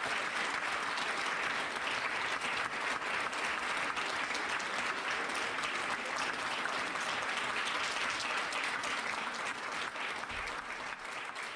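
Audience applauding steadily, a dense patter of clapping that eases off slightly near the end.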